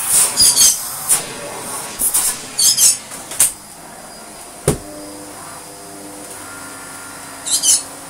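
Shark upright vacuum cleaner running on a rug with a scraping sound from the floor head, dropping to a quieter, steadier hum about three and a half seconds in, with a single knock shortly after. A pet bird chirps briefly three times.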